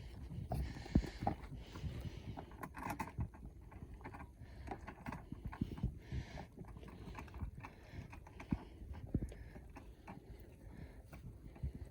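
Irregular soft thumps, scuffs and rustles of a young fox and a puppy moving and tussling on the ground.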